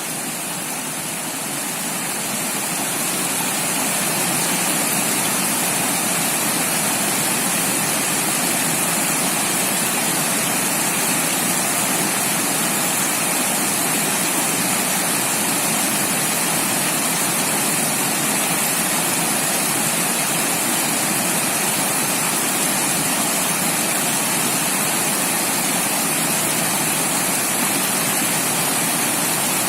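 Water rushing over rocks in a river's rapids: a steady, full rushing with no breaks, fading in over the first few seconds.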